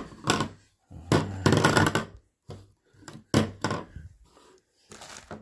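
White plastic PVC pipe fittings being handled and set down on a hard countertop: a series of knocks and short clatters with quiet gaps between them.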